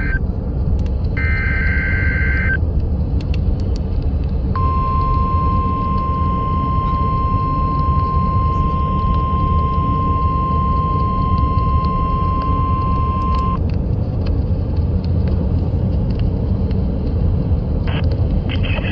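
Emergency Alert System weekly test over the air on a weather radio with steady static. A digital SAME header data burst sounds about a second in. About four seconds later the steady 1050 Hz warning alarm tone starts and holds for about nine seconds, then cuts off, leaving the static.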